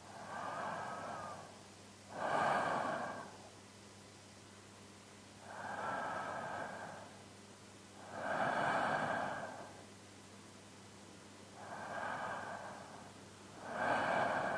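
A man's slow sleeping breaths, close on a binaural microphone: three breaths, each a soft in-breath followed by a louder out-breath, about six seconds apart.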